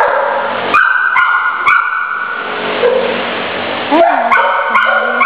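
Dogs barking over and over in a dog-pound kennel, sharp barks coming roughly twice a second with a lull in the middle, over a steady din.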